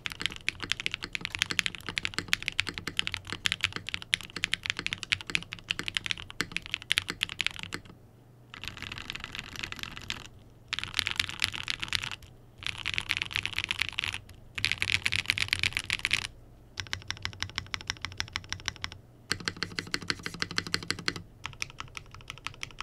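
Typing on a Float65 bent-steel 65% mechanical keyboard with Gateron Lunar Probe linear switches, an FR4 plate, no foam and GMK keycaps, set on a bare wooden desk without a deskmat. The keystrokes come fast and steady in runs, broken by short pauses.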